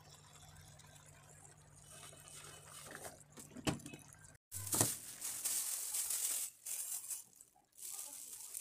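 Kitchen food-preparation handling noises: a faint low hum with a few clinks about three seconds in, then, after a brief break in the sound, louder rustling.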